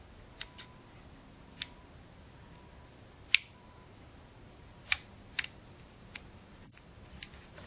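Small, sharp mechanical clicks, about nine of them spread unevenly, the loudest a little over three seconds in. They come from the auto selector switch of a KWA ATP gas blowback pistol being worked back into the frame, its detent bearing clicking into the indentation holes.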